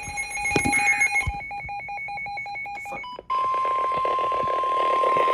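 Electronic emergency-alert tones: for about three seconds a pulsing, warbling electronic beeping that flips rapidly between two pitches, then a steady single tone near 1 kHz over radio static, the weather-radio warning alarm tone that comes before a flood warning.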